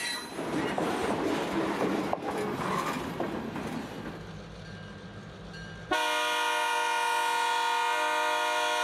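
Freight cars rolling past with wheel clatter on the rails. After a quieter stretch, about six seconds in, the air horn of an approaching EMD GP38-2 diesel locomotive sounds one long, steady chord.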